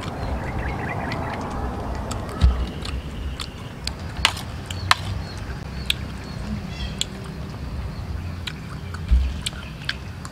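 Eating sounds: a metal spoon and chopsticks clinking against a metal tray in scattered sharp clicks, with a couple of soft thumps, while someone chews. Faint birds chirp in the background.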